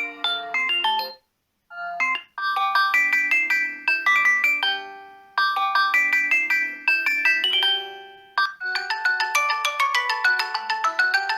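Xiaomi Redmi 7A ringtones playing. One melody ends about a second in, and after a short pause another begins, repeating a short phrase of quick notes. Near the end the tune turns busier and brighter.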